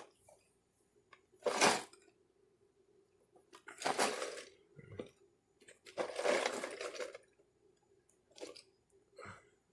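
Several short rustles and scrapes of a cardboard box being handled, the longest lasting about a second, over a faint steady hum.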